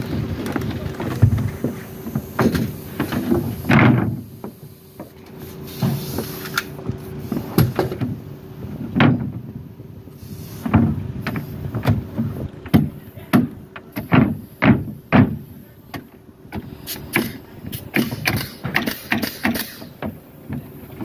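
Pneumatic nail gun firing nails through OSB sheathing into the wall framing: sharp shots in quick runs, about two to three a second, with short pauses between runs. The first few seconds hold knocks and handling noise as the sheet is set in place.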